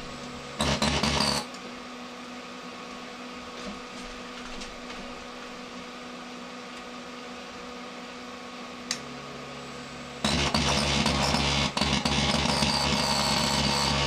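Hinari Lifestyle microwave oven running with a steady hum and a brief loud buzz about a second in. About ten seconds in it jumps to a much louder, harsher buzz that keeps going, which the owner takes for the oven giving up after playing up for some time.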